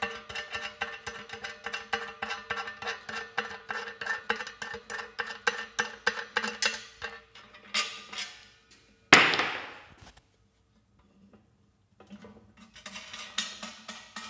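Rapid metallic clicking as bolts are worked loose from the steel top plate of a jet-engine combustion chamber, with the steel ringing faintly under it. The clicking stops about seven seconds in; a clink follows, then a loud metal clank about nine seconds in, and the clicking starts again near the end.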